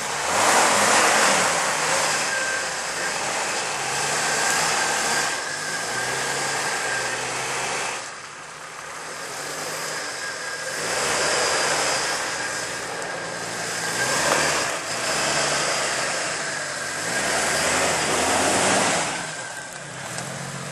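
Jeep Wrangler engine revving in repeated surges under load off-road, with a rushing, crackling noise of tyres churning dirt and tree branches scraping against the body.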